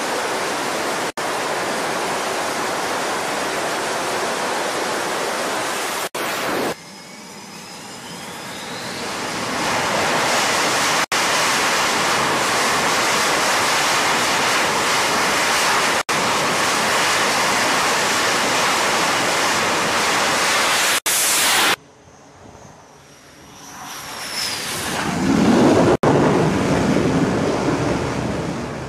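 Jet engines of F/A-18 Super Hornet fighters on an aircraft carrier's flight deck: a loud, steady roar of engines at high power, broken by several sudden cuts. About seven seconds in the roar drops away and builds back with a rising whine. Near the end a jet's whine falls in pitch and a deeper roar swells as a Super Hornet lands on the deck.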